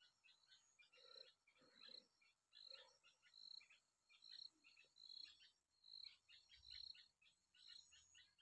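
Near silence, with faint high-pitched chirps repeating a little more than once a second.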